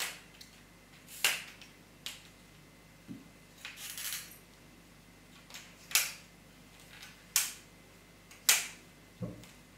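Sharp plastic-and-metal clicks from the folding tripod-base legs of a Velbon Pole Pod EX monopod as they are swung and locked by hand, about six clicks a second or so apart. A brief rustle comes about four seconds in, and a soft low knock on the table near the end.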